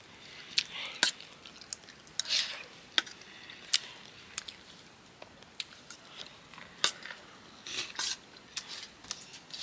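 Metal dishes and spoons clinking and scraping as people eat: a string of irregular, sharp clinks and taps.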